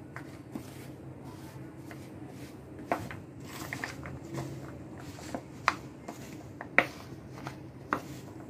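A steel spoon stirring flour-coated raw peanuts in a bowl: soft scraping and rustling of the coated nuts, with several sharp clinks of the spoon against the bowl, the loudest a little before the end.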